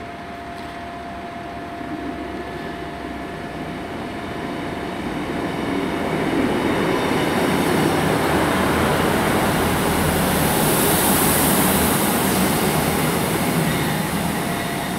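Class 158 diesel multiple unit drawing into the platform. The sound of its underfloor diesel engines and wheels grows louder over the first seven seconds or so, holds, then eases off near the end, with a brief high hiss at its loudest.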